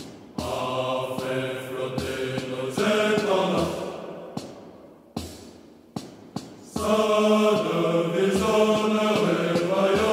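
A choir singing a slow song in long held notes. The singing thins out about four seconds in, with a few clicks, and comes back strongly at about seven seconds.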